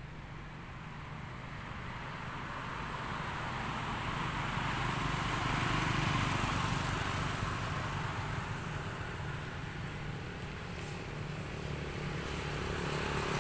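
A motor vehicle's engine running, growing louder to a peak about six seconds in, easing slightly, then building again near the end.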